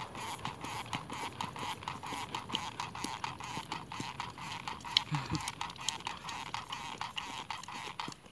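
A dog lapping at a cup held out to it, a quick run of wet licks at about four a second.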